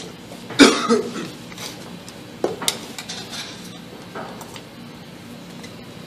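Metal hose clamp and screwdriver clinking and scraping as the clamp is worked into place on a dirt bike's rubber intake boot. Scattered light clicks and ticks, with one louder sharp sound about half a second in.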